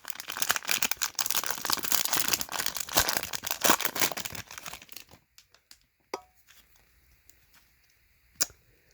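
A trading-card hanger pack's plastic wrapper being torn open and crinkled for about five seconds. A few light clicks of cards being handled follow.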